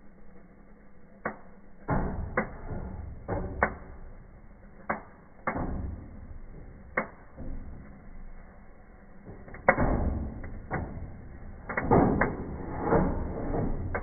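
Cardboard firework fountain burning, with irregular sharp pops and bangs among bursts of hissing. The loudest bang comes about ten seconds in, followed by a dense run of pops near the end.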